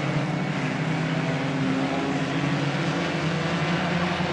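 Race car engines running together as a pack of cars circles the track, a steady sound.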